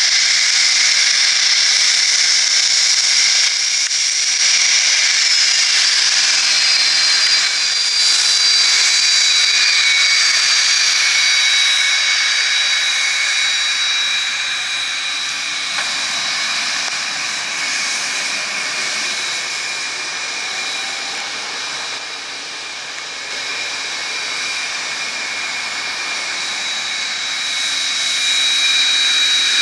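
Cessna 550 Citation II's twin Pratt & Whitney Canada JT15D turbofan engines running with a steady high-pitched whine over a rushing hiss. The whine's pitch drops about five seconds in, and the sound eases slightly in the second half before swelling again near the end.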